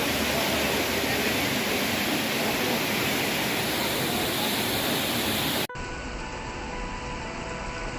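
Steady rush of a waterfall, loud and even, cut off abruptly about two-thirds of the way through and replaced by background music with held notes.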